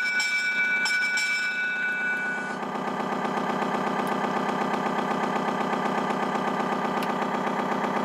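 An RC model tugboat's sound module playing a simulated diesel engine idling steadily with an even pulsing beat. For the first two and a half seconds a high, steady two-note tone sounds over it, then stops.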